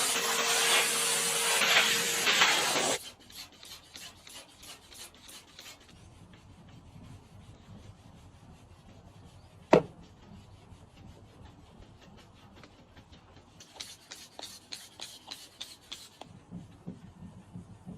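A loud spray hiss that stops abruptly about three seconds in. It is followed by quiet, rhythmic scrubbing strokes of car cleaning, with a single sharp click midway.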